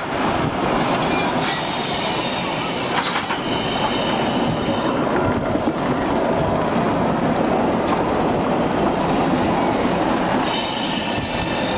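Victorian Railways K-class steam locomotive K163, heard at close range: a loud, steady mechanical noise with hissing. Brighter spells of high hiss come about a second and a half in, and again near the end.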